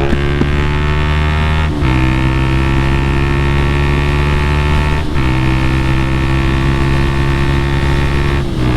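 Honda motorcycle engine pulling hard at high revs, with three brief breaks for upshifts, about two, five and eight and a half seconds in. The bike is carrying about 50 pounds of camping gear and accelerates sluggishly under the load.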